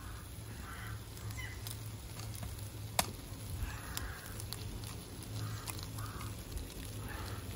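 Bacon frying in a ceramic-coated skillet over a gas camping stove, with one sharp tap about three seconds in as an egg is cracked. Geese honk faintly several times.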